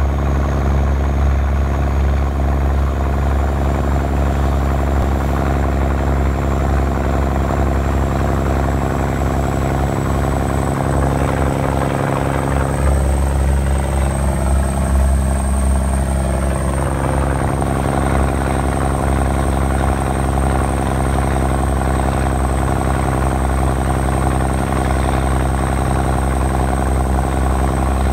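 Heavy military truck's diesel engine running steadily under load as the M35A2 deuce-and-a-half pushes through deep flood water. A thin high whine runs over the engine throughout.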